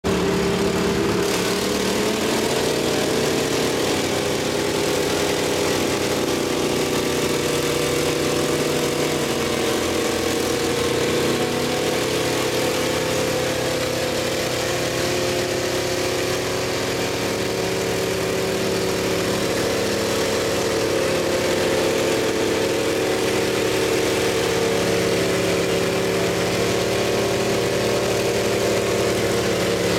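Pickup truck engines running under load as two trucks pull against each other on a chain in a truck tug of war. The engine note holds steady, stepping up about two seconds in and shifting again around ten seconds.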